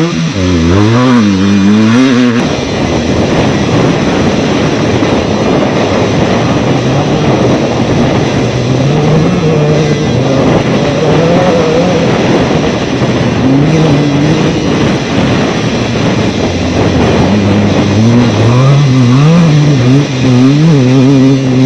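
Off-road desert race car's engine running hard, its pitch rising and falling with the throttle. From about two seconds in, a steady loud rushing noise runs under the engine.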